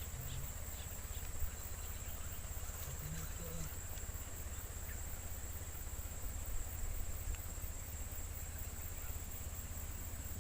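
Steady, high-pitched insect chorus trilling without a break, over a low steady rumble.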